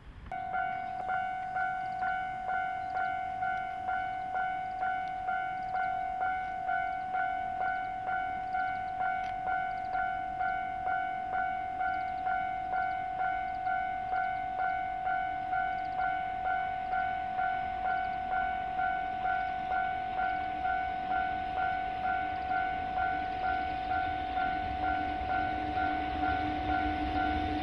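Railway level-crossing warning bell ringing steadily, its electronic ding repeating about one and a half times a second. In the last few seconds the rumble of an approaching EF64 electric locomotive and its tank-car freight train grows louder underneath.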